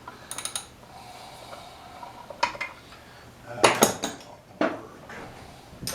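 Hand tools clinking and clattering against the metal parts of a small Briggs & Stratton flathead engine being taken apart. There are a few separate metallic clicks, and the loudest run of several clinks comes a little past halfway.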